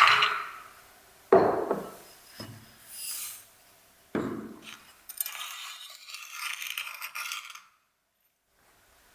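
Kitchen dishes and utensils being handled: three sharp clinks and knocks, the first about at the start, then a few seconds of scraping. Near the end the sound cuts off abruptly.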